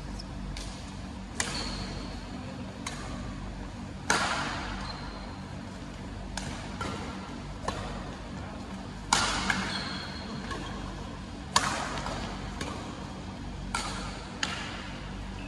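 Badminton rackets striking a shuttlecock back and forth in a doubles rally, about a dozen sharp cracks at uneven intervals. The loudest hits, about four, nine and eleven and a half seconds in, echo briefly in the hall.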